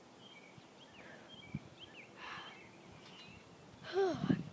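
Faint songbird chirps in the background, short and high. Near the end comes a short breathy vocal sound from a girl, falling in pitch, as she catches her breath from tiredness.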